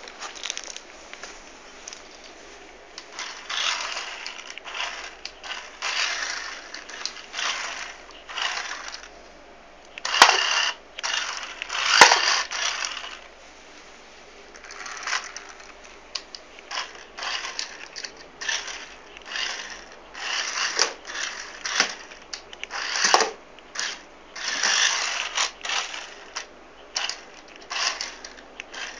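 Small mini 4x4 RC car driving in short stop-start bursts, its little electric motor and gears running in spurts. Two sharp clicks or knocks come about ten and twelve seconds in.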